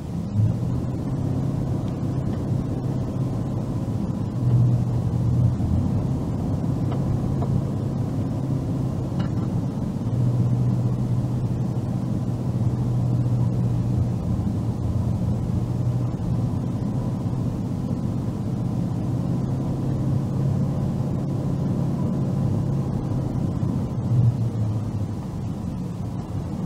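Car's engine and road noise heard from inside the cabin while driving, a steady low drone that swells and eases slightly with the road.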